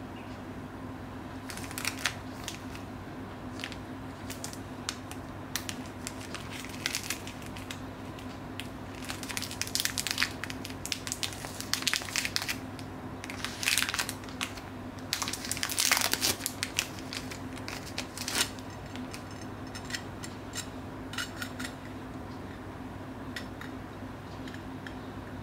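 Thin clear plastic bag crinkling and crackling in gloved hands as it is opened to free a tin button badge, in uneven spells that are loudest around the middle, then dropping to a few faint handling clicks near the end. A steady low hum runs underneath.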